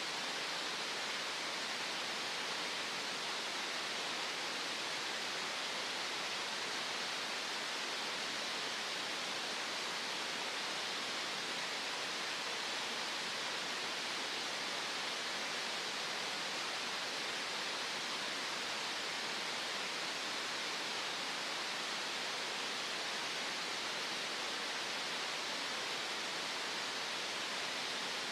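Green noise: a steady, even hiss with its weight in the middle range and little bass, never changing.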